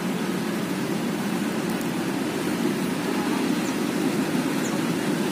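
Steady low rumble of distant city traffic, even and unbroken.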